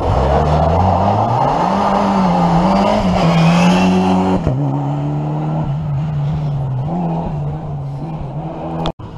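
Skoda Fabia rally car's engine revving hard as it accelerates through a hairpin and passes close by, its pitch climbing and then holding high with brief dips at the gear changes. About four and a half seconds in, the sound changes abruptly to an engine running at steadier revs, with a short dropout near the end.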